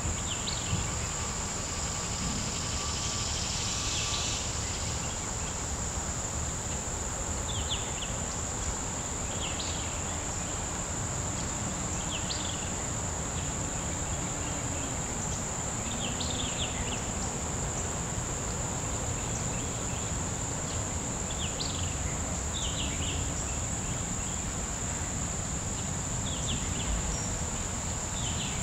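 Insects trilling in a steady, high-pitched drone, with short chirps repeating every couple of seconds and a low steady rumble underneath.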